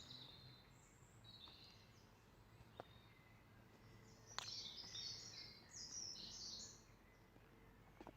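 Faint songbirds singing in short twittering phrases, the busiest stretch about four to six and a half seconds in, with a small sharp click just before it.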